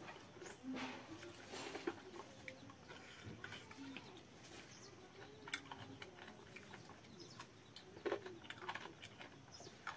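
A person eating by hand: chewing, lip-smacking and wet mouth clicks as he eats fermented water rice (pakhala) with chicken curry.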